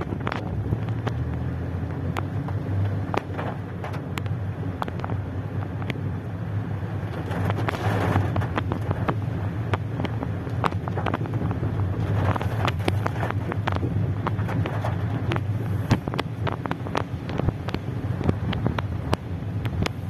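Rain pattering on a car's roof and windscreen, heard from inside the cabin as many sharp ticks over the steady low hum of the moving car.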